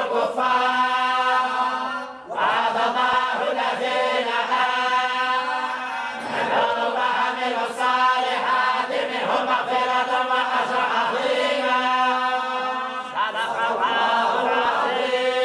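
Moroccan-style collective Quran recitation: many voices chanting together in unison, with long held notes and a short breath pause about two seconds in.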